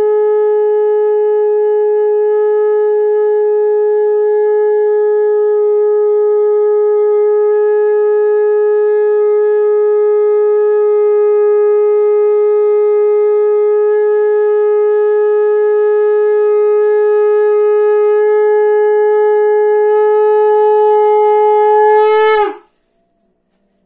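Conch shell (shankha) blown in one long unbroken note, steady in pitch with a bright, buzzy ring, held for over twenty seconds before the pitch sags and the note cuts off near the end.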